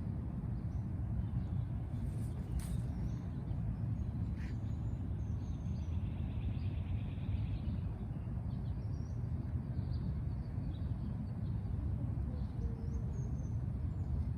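Steady low outdoor rumble, like wind on the microphone or distant traffic, with faint, scattered bird chirps high above it and a couple of soft clicks early on.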